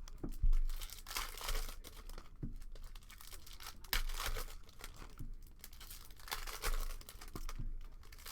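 Trading card pack wrappers crinkling and tearing as packs are opened and handled, with irregular rustles and small clicks.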